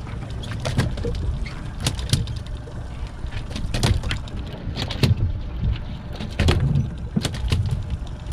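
Steady low rumble aboard a sportfishing boat at sea, with scattered sharp knocks and thumps on deck at uneven intervals.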